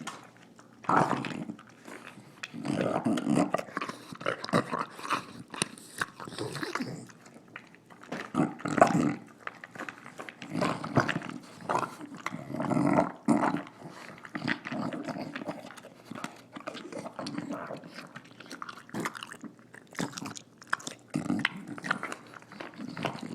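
English bulldog snorting and snarling as she eats, in irregular bursts about a second or two apart, with sharp clicks of chewing between them.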